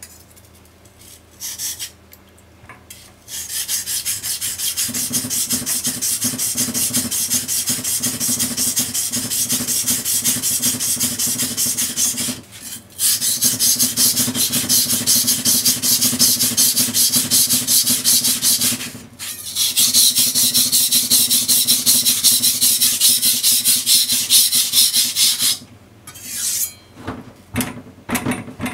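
A small bunka kitchen knife's blade stroked rapidly back and forth on a wet whetstone: steady, fast scraping in three long runs with a short pause between each. It starts about three seconds in and trails off into a few scattered strokes near the end.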